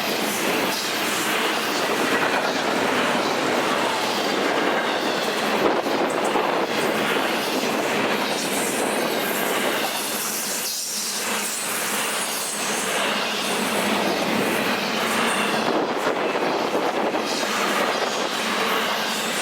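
A train's cars rolling past, with a steady noise of wheels on the rails that eases briefly just before the middle.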